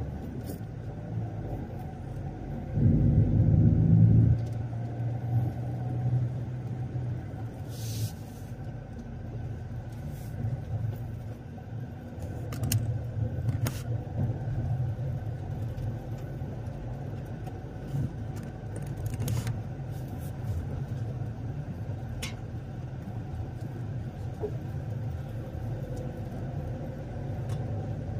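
A motor vehicle running, a steady low drone of engine and road noise, with a louder low rumble about three seconds in and a few scattered clicks.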